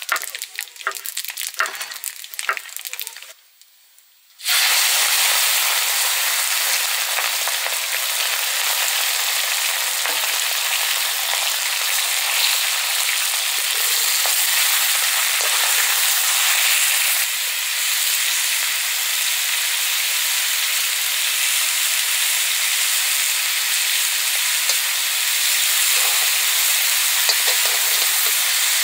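Food frying in hot oil in a pan: a loud, steady sizzle that starts abruptly about four seconds in. Before it come a few seconds of irregular clicks and scrapes, then a brief near-silence.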